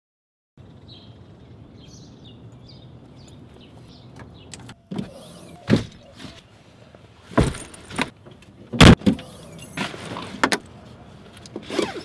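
Bags being dropped and shifted into a car's trunk: a string of thuds and scuffles on the trunk floor, the loudest about three-quarters of the way through.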